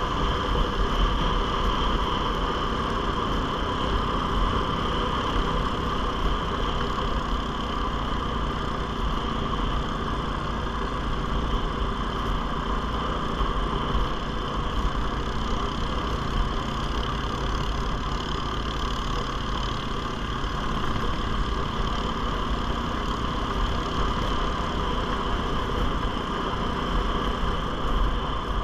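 ATV's single-cylinder engine running at a steady cruising speed while riding a snowy trail, an even drone with a constant whine and no revving.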